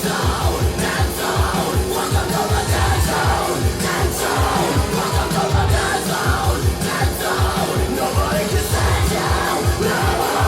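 Hard techno played loud, with a fast, pounding kick drum driving a dense, distorted beat.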